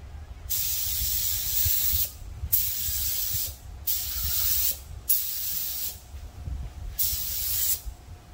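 Gravity-feed spray gun spraying urethane automotive clear coat. The air hiss comes in five trigger pulls of about one to one and a half seconds each, starting and stopping sharply, over a steady low rumble.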